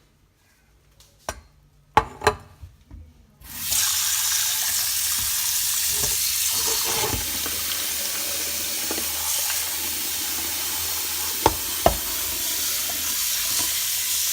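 A few knocks of metal being handled, then a tap turned on: water runs steadily into a sink, cooling the knife that has just been boiled. Two sharp clicks sound near the end.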